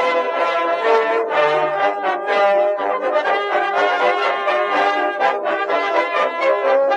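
Background instrumental music, a melody moving through many short notes.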